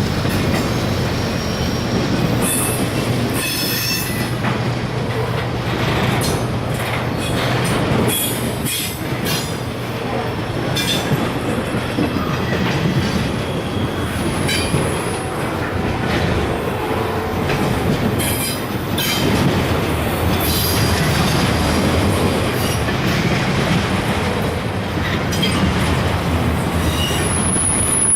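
Freight train cars rolling past, steel wheels clacking over the rail joints and squealing on the rail in short, high-pitched bursts now and then.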